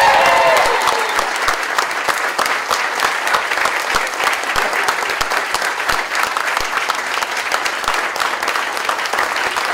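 Crowd of guests applauding, a dense steady clapping, with a few cheering voices that fade out within the first second.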